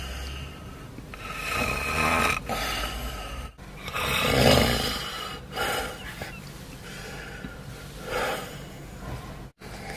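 A sleeping man snoring, about four loud snores a couple of seconds apart, the loudest about halfway through, over the low steady hum of a car cabin.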